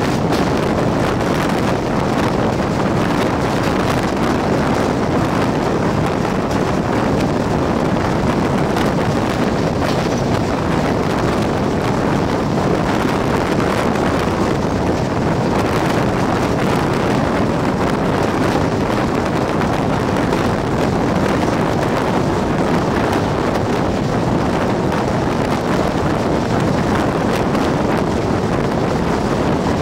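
Steady, loud rush of wind buffeting a microphone held outside a Jan Shatabdi Express passenger train running at speed, mixed with the train's running noise.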